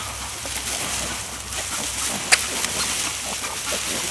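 Sow and newborn piglets grunting softly amid rustling in the straw bedding, with one sharp click about two seconds in.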